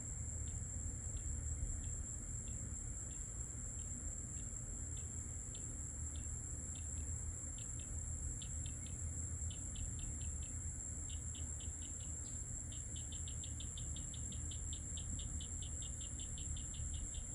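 Night insects calling: a steady, high-pitched insect drone, with a second insect chirping about twice a second that speeds up into rapid pulsing over the last several seconds. A steady low rumble runs underneath.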